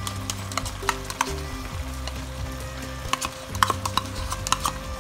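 Tomato curry simmering in a pan, with scattered pops and clicks as a spoon scoops thick yogurt from a plastic tub and drops it in. A low steady hum runs underneath.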